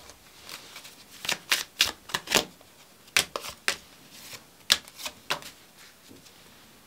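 Paper cards handled and laid down one after another onto a tabletop from a stack held in the hand: a run of irregular sharp taps and card slaps, the sharpest a little before the five-second mark, going quiet near the end.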